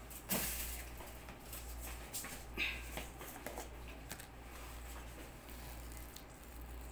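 A few small knocks and clatters of kitchen handling, the sharpest about a third of a second in and another about two and a half seconds in, over a low steady hum.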